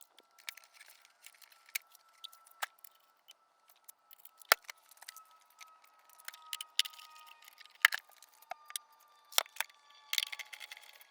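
Irregular clicks and clinks of small hard parts or tools being handled, with a few sharper knocks and a quick clatter near the end.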